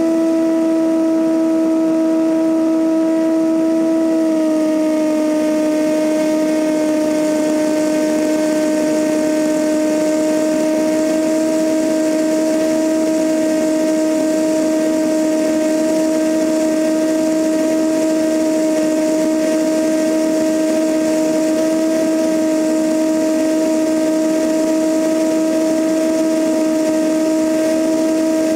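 Cessna 172N's four-cylinder Lycoming engine and two-blade propeller droning steadily in flight, heard from a camera mounted outside the cabin, over a rush of wind. The pitch drops slightly about four seconds in.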